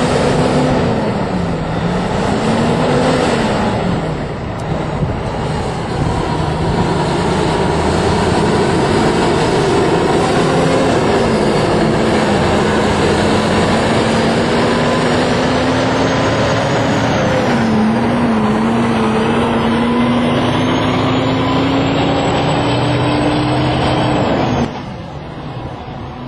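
Diesel engines of heavy-haulage prime movers pulling an oversize load as they pass close, with a dense steady road noise and engine pitch dipping and rising. A high whine climbs in the second half, and the sound drops away abruptly shortly before the end.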